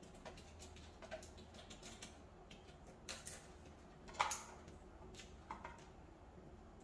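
Light scattered clicks and rattles of plastic and metal fittings as a grow light's adjustable hanging rope and clips are handled. The loudest click comes about four seconds in.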